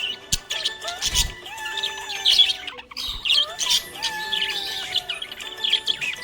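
Budgerigars chirping and warbling in quick, busy runs of short high notes, mixed with a few longer falling whistles, over steady background tones. A low thump sounds about a second in.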